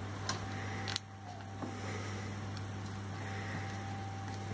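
A steady low hum, with a few light clicks and scrapes as a plastic measuring spoon digs butter out of a plastic tub.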